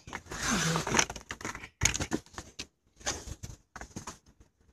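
Handling noise from someone climbing out of a car seat while holding the phone: about a second of rustling near the start, then scattered bumps and clicks of clothing and hands against the seat and door.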